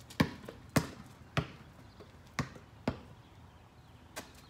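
A basketball bouncing on a paved driveway: about six sharp bounces at uneven spacing, the last one fainter.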